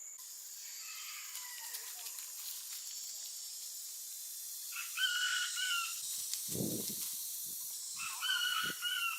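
A steady hiss with two short, pitched animal calls about three seconds apart, and a few dull thumps between them.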